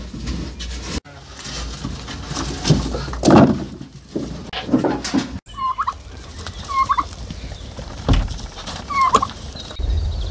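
Farm animals calling: three short, high calls, about six, seven and nine seconds in.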